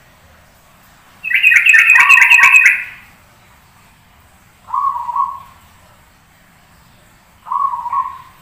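Zebra dove (perkutut) cooing: short soft coo phrases repeated about every three seconds, three in all. About a second in, a louder, higher rapid run of chirps from another source plays for nearly two seconds, over the first coo.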